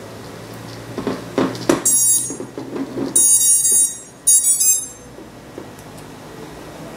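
The quadcopter's brushless motors sound the electronic speed controllers' power-up beeps as the battery is connected: three runs of high-pitched beeping, between about two and five seconds in, a sign that the ESCs are powered and initialising. Connector handling clicks come about a second in.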